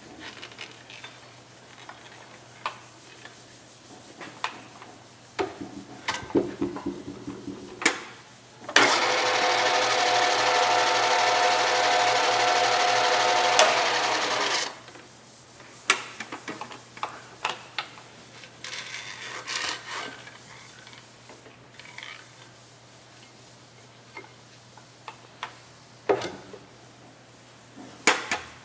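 Bridgeport step-pulley vertical mill's 1 hp spindle motor switched on, running steadily with a hum and a whine for about six seconds, then cut off abruptly. Before and after it, scattered clicks and clunks of hands working the machine's levers and head.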